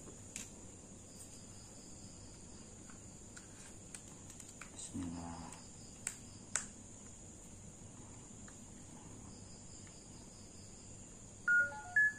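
EZVIZ S3 action camera powering on: two short electronic start-up beeps near the end, after a couple of sharp clicks from handling it. Crickets chirr steadily in the background.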